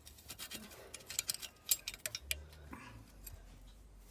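Light, irregular metallic clicks and ticks, like hand tools being handled during work on a motorcycle's exhaust header bolts. The clicks are most frequent about a second in and thin out in the second half.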